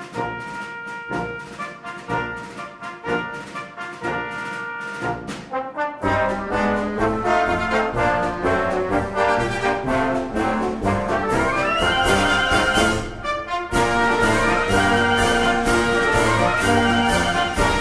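Instrumental background music: a lighter passage of held notes, then about six seconds in a fuller, louder section with a bass line and climbing runs of notes.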